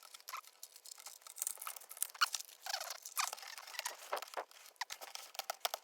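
3D-printed plastic dragon toys being worked loose from the printer's print tray: irregular small plastic clicks, snaps and scratchy scrapes.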